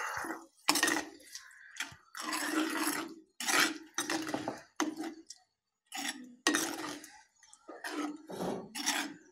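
Steel ladle stirring thick toor dal in a clay pot (mann chatti), scraping against the pot in a series of short strokes with brief pauses between, as the cooked dal is mixed into the tempering.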